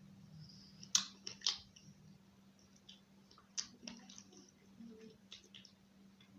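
A person eating curry and roti: quiet chewing with sharp, wet mouth clicks and smacks, a few louder ones about a second in and again near the middle.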